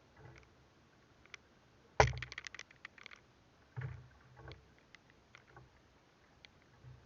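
Knocks and rattling clicks against a small wooden boat: one sharp knock about two seconds in, a second of quick clattering after it, then two duller thuds a little later.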